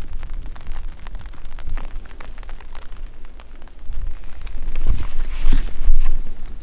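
Wind buffeting the microphone as a steady low rumble, with scattered light ticks like raindrops, getting louder in gusts about four to six seconds in.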